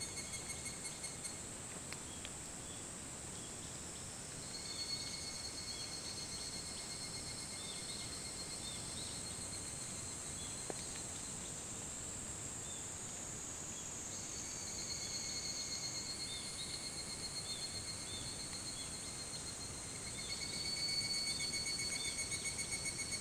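Higurashi evening cicadas (Tanna japonensis) calling: several insects give rapid, pulsed, high trills that come in overlapping bouts. One bout fades out just after the start, others take up about five seconds in and again around fifteen seconds, and a louder one starts about twenty-one seconds in.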